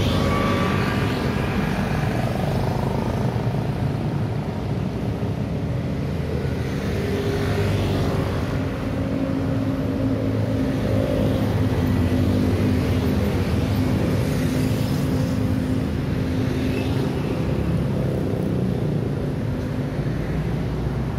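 Road traffic on a busy city street: motorcycles and cars passing steadily, their engines and tyres making a continuous noise that swells with each nearer pass-by. A steady engine hum runs underneath through the middle stretch.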